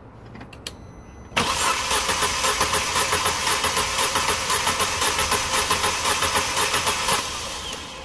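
Starter motor cranking the 1.4 petrol Z14XEP engine of a Vauxhall/Opel Astra with a steady, even beat, starting about a second and a half in and stopping near the end. It is cranking for a compression test on cylinder 2, which shows no compression at all; the mechanic puts that down to a sticking valve.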